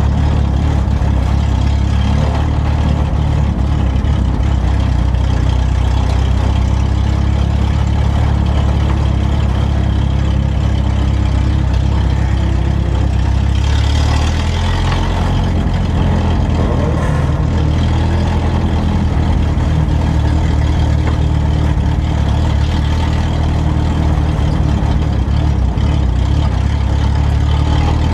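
Mini stock race car's engine running steadily at low revs, heard from inside the car as a loud low drone, with a short hiss about halfway through.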